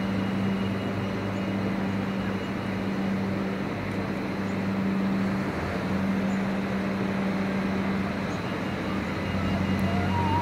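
Steady low drone of 3000 class diesel railcars idling at the platform, the hum dipping briefly about halfway through.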